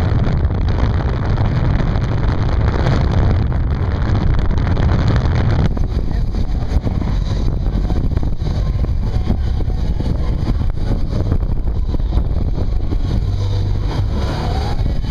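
Car driving, heard from on board: engine running with wind noise on the microphone. About six seconds in the wind noise drops away, leaving the engine's low, steady running as the car rolls along slowly.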